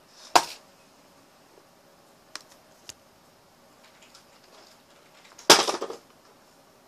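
A sharp knock about half a second in and a louder clattering knock about five and a half seconds in, lasting about half a second, with two faint clicks between them.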